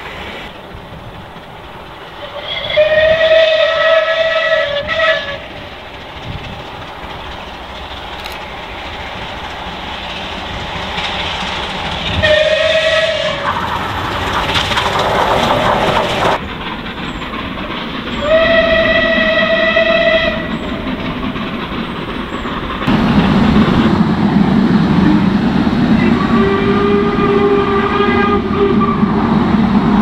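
Steam locomotive whistle sounding in three separate blasts of about two seconds each, a steady pitched tone with overtones. Near the end a train passes close by with a loud rumble, and another whistle sounds over it.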